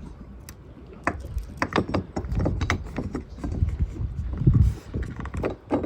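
Light clicks and knocks of metal and plastic parts of a Lewmar sailboat winch being handled as it is taken apart, over a low rumble.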